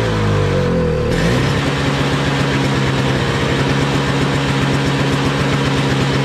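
Toro Snow Commander snowblower's 7 hp Briggs & Stratton single-cylinder engine running after its ignition coil (magneto) was replaced. Its speed drops over about the first second, then it runs steadily.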